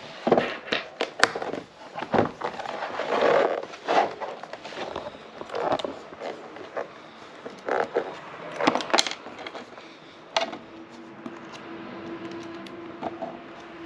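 Clicks and knocks of a plastic helm dashboard mount and screws being handled, then about ten seconds in a cordless driver starts running steadily, driving a screw into the mount.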